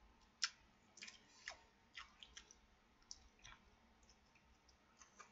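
Faint eating sounds: a person chewing, with a dozen or so small sharp clicks at irregular intervals.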